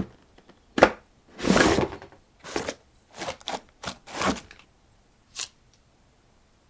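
Cardboard shipping box being handled and opened: a sharp tap, then a run of scraping and rustling noises, with one last short scrape about five seconds in.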